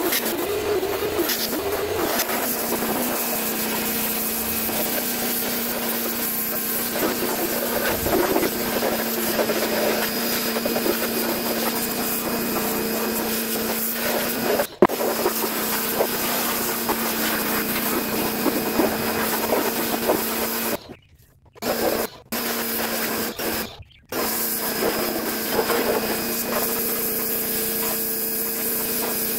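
Electric pressure washer running steadily, its motor and pump humming under the hiss of the water jet spraying plastic door panels. The sound briefly stops twice, about three-quarters of the way through.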